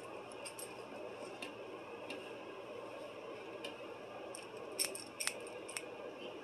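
Squeeze-handle metal cookie scoop scraping and clicking against a stainless steel mixing bowl as cookie dough is scooped out, faint at first, with a few sharper clicks near the end.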